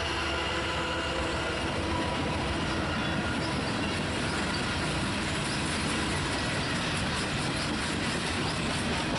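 Diesel freight train passing close by. In the first few seconds the hum of the trailing locomotive's engine fades as it moves off, leaving the steady rumble of freight cars rolling past, with faint wheel clicks.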